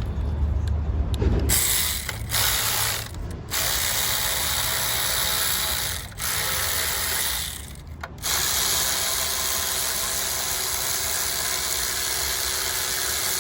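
Cordless power tool (the mechanic's "gun") whirring in several bursts as it spins off the car battery's fasteners, the last burst lasting several seconds.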